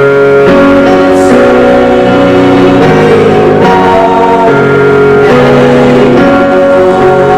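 Hymn music in a church service, held pitched notes changing about once a second.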